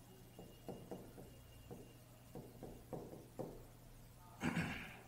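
Chalk tapping and scratching on a blackboard as words are written: a string of short, faint strokes over a low steady hum. A brief breath-like voice sound comes near the end.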